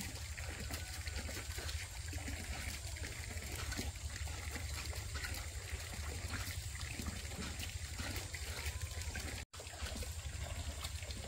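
Water trickling steadily over a low, even rumble, with the sound cutting out for an instant about nine and a half seconds in.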